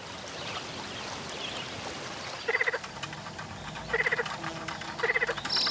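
Frogs croaking: three short, rattling croaks in the second half, roughly a second apart.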